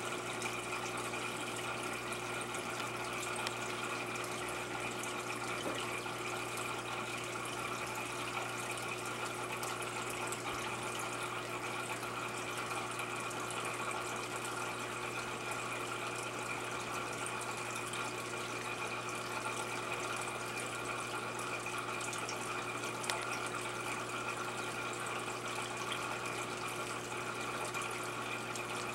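Aquarium filtration running: water trickling and splashing steadily, with a steady low hum underneath.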